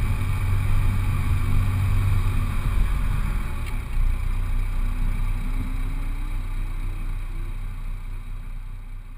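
Supercharged Honda Civic Si coupe's four-cylinder engine running at low speed as the car rolls slowly over grass, a steady deep rumble. The sound fades out gradually over the last few seconds.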